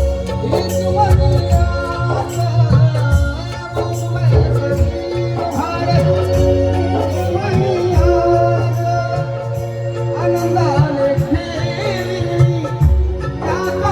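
Live Marathi Bhim song: singing and melody over held notes and a steady drum beat.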